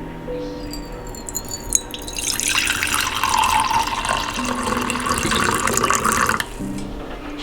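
Water running from a tap for about four seconds, starting about two seconds in and cutting off sharply.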